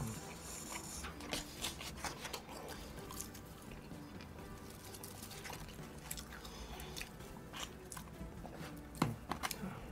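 A man chewing and biting a mouthful of food close to the microphone, with irregular wet clicks and crunches, over quiet background music. A few sharper clicks come near the end.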